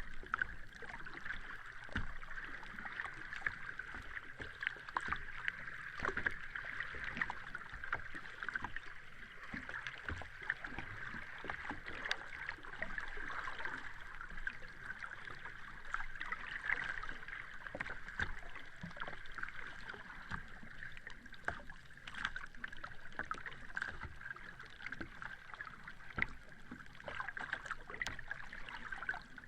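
Sea water washing steadily, with a constant fizz and many small crackling splashes, without distinct swells of breaking waves.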